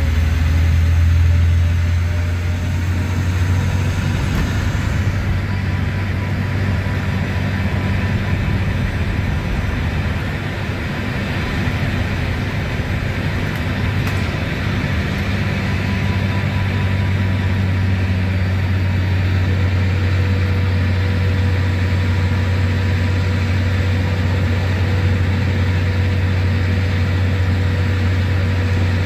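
Mercedes-Benz OM936LA six-cylinder diesel engine of an articulated bus running steadily at cruising speed with a deep drone. It is heard from inside the passenger cabin through an open rear floor hatch, with a faint steady whine above it.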